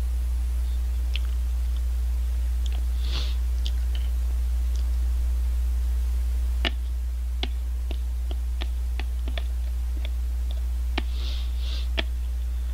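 A spoon clicking and scraping against a clear plastic shaved-ice cup: scattered sharp clicks, coming thicker in the second half, with short scrapes about three seconds in and again near the end. A steady low electrical hum runs underneath.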